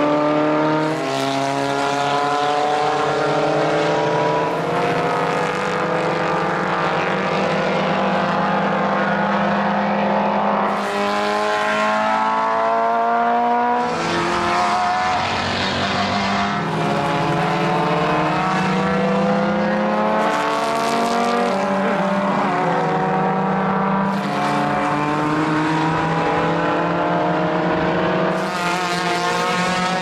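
Several historic single-seater racing cars driving past one after another, their engines overlapping. Each engine climbs in pitch and drops back repeatedly as the car accelerates and shifts up through the gears.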